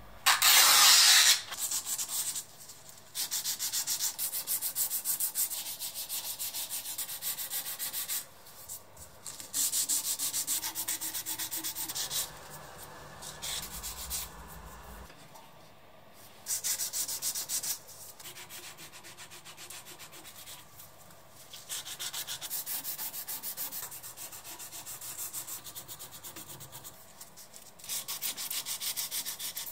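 Hand-sanding a mammoth-tooth knife handle with abrasive paper: rapid back-and-forth rubbing strokes in several runs of a few seconds with short pauses between, the first brief run the loudest.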